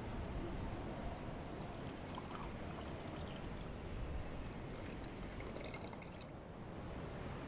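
Liquid pouring in a thin stream for a few seconds, with a fine crackle that stops suddenly near the end, over a steady low rumble.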